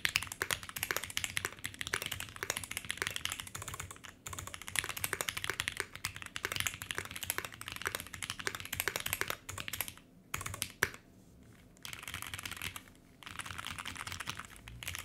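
Fast typing on a Polaris 60% mechanical keyboard with an aluminium plate, foam inside and ePBT Dolch keycaps: a dense run of key clacks as different switch types are played in turn. The typing breaks off briefly about 4 and 10 seconds in, and for about a second around 11 to 12 seconds in.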